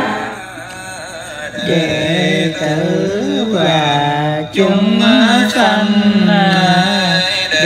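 Buddhist niệm Phật chant: a voice chanting a slow, gliding melody, coming in fuller about a second and a half in.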